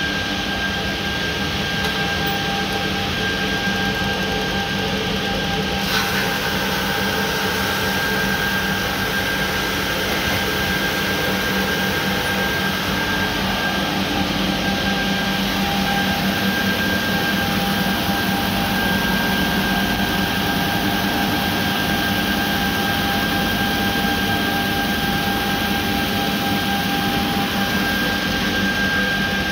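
Drum sander running steadily, its motors and sanding drum giving a constant hum with a few steady whining tones. A single sharp click about six seconds in.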